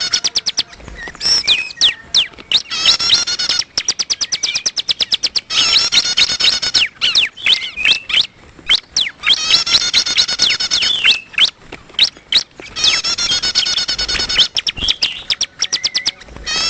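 Ciblek (bar-winged prinia) calls: bursts of fast, chattering trills alternating with runs of sharp clicking notes, the pattern repeating every few seconds.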